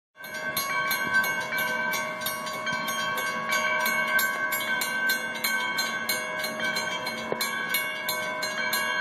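Railroad grade-crossing warning bell ringing steadily, with rapid even strokes several times a second and a ringing tone between them: the crossing is active for an approaching train.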